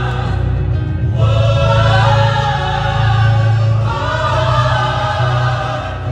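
A choir singing, with a short break in the voices about a second in before the singing resumes.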